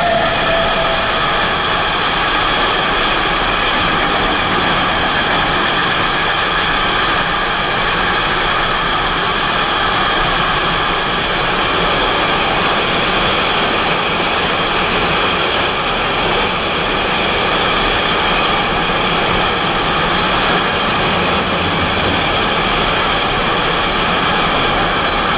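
Container freight train's wagons passing close by at speed: steady rolling noise of steel wheels on rail, with a steady high-pitched whine of several tones over it.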